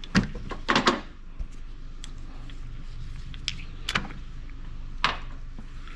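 Scattered short metallic clicks and clinks of hand tools, about half a dozen, as a socket extension is picked out and fitted to a ratchet. A steady low hum runs underneath.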